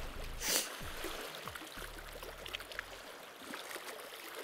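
Lake waves washing and lapping against a concrete revetment, with a brief louder rush about half a second in. Low, steady background music notes underneath stop about three seconds in.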